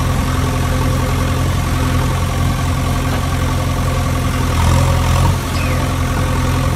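Engine idling steadily at an even, unchanging pitch, swelling a little louder about five seconds in.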